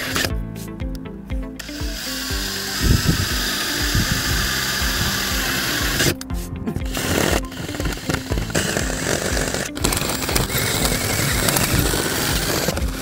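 DeWalt cordless drill boring holes through quarter-inch HardieBacker cement board. It stops twice for a moment, once just after the start and again about six seconds in. Background music with a steady beat plays underneath.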